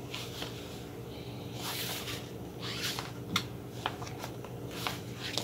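A large paper cover sheet rustling and sliding in several short swishes as hands smooth it flat over a transfer on a heat press, with a few light taps. A steady low hum runs underneath.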